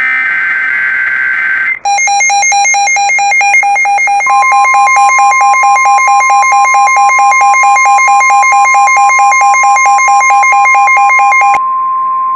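The last burst of an Emergency Alert System SAME digital header, a shrill data warble, followed about two seconds in by a loud, rapidly pulsing electronic alarm. About four seconds in, the steady 1050 Hz NOAA Weather Radio warning tone joins it and carries on alone after the pulsing cuts off near the end. Together they mark the start of an emergency broadcast alert.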